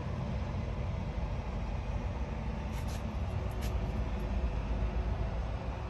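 Truck engine idling, a steady low rumble heard inside the cab, with a few faint light ticks about three seconds in.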